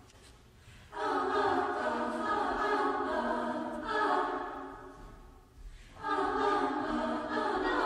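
A cappella choir singing, coming in about a second in, easing off briefly around five and a half seconds, then resuming with a new phrase.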